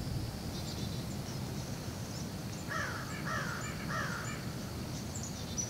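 A crow cawing three times in quick succession, each harsh call falling in pitch, with faint high chirps of small birds behind it.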